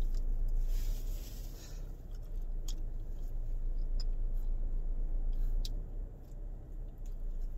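Someone biting into and chewing banana, with a few small sharp clicks over a steady low hum.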